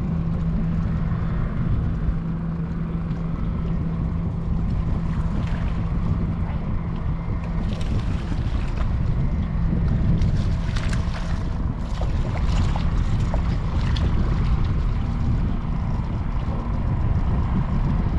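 Boat motor running steadily, with a low rumble, a steady hum that fades about halfway through, and wind on the microphone. A scatter of sharp clicks and knocks comes between about eight and fourteen seconds in.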